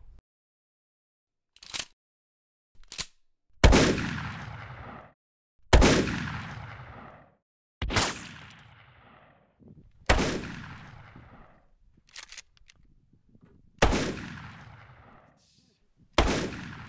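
Six 12-gauge pump-action shotgun shots, mostly about two seconds apart with a longer gap before the fifth, each followed by a long echoing tail. Two short clicks come before the first shot.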